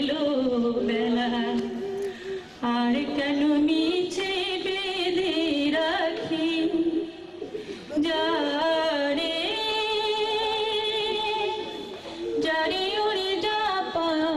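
A woman singing a Bengali song into a handheld microphone: a single voice holding long notes with vibrato, pausing for breath twice, about two and a half and seven seconds in.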